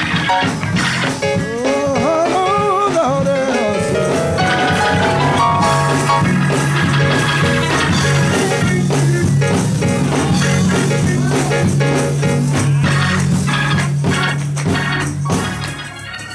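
Live gospel church music: organ and drums playing together, with a wavering melody line about two seconds in and a steady deep bass line through the middle, the music dropping away near the end.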